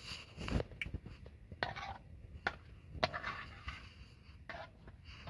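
A metal fork stirring egg and chopped meat in a metal frying pan, scraping and clinking against the pan several times at irregular moments.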